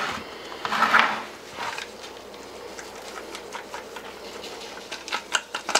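Seasoning rub being shaken from a spice shaker bottle onto a pork butt: two shakes, at the start and about a second in, then a run of short sharp taps and clicks near the end.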